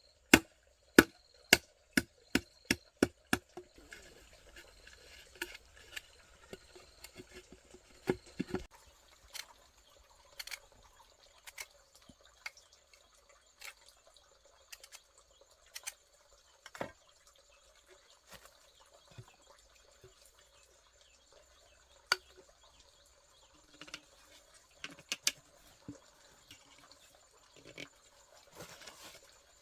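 A quick run of sharp, evenly spaced knocks or chops, speeding up over the first few seconds, then scattered light clicks and taps.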